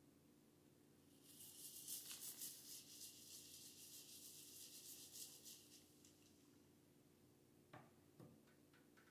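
Faint scratchy brushing as the bristles of a small scrub brush are rubbed back and forth in quick strokes over a wet bar of soap to work up fresh suds. About eight seconds in, two light clicks follow as the soap is set down in its dish.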